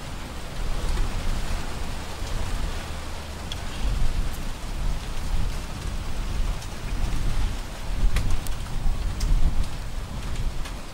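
Wind buffeting the microphone: an uneven low rumble with a hiss over it.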